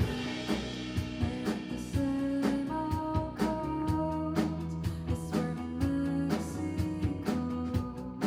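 Live rock band playing an instrumental passage: sustained guitar and bass notes over a steady drum beat, about two hits a second.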